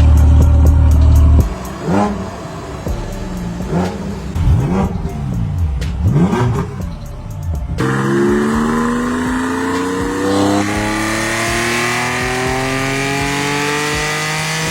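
Porsche Cayman GT4 flat-six through an aftermarket cat-back exhaust: several quick throttle blips rise and fall in pitch, then about eight seconds in a long full-throttle pull begins, the engine note climbing steadily.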